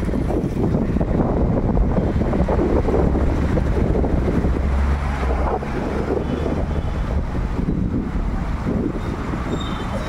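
Steady road and engine noise of a moving vehicle, with a deep wind rumble on the microphone that eases after about five and a half seconds.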